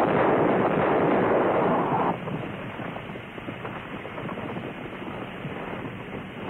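A brick wall crashing down as a Sherman tank rams it with a steel pickup frame welded to its front: a loud, noisy crash for about two seconds, then quieter, steady noise as the tank's tracks roll over the rubble.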